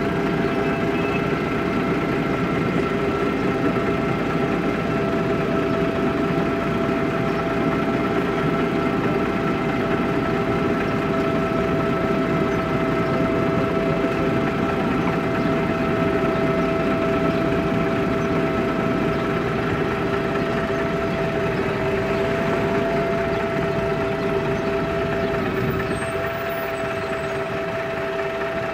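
MAN Lion's Classic city bus idling, its diesel running steadily with a constant whine from the Voith automatic gearbox at idle. The sound eases slightly in the last few seconds.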